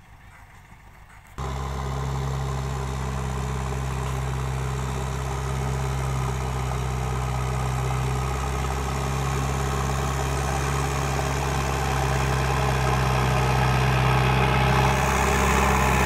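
JCB backhoe loader's diesel engine running steadily as the machine pushes soil along with its front loader bucket. The engine sound comes in suddenly about a second and a half in and grows louder toward the end as the machine draws close.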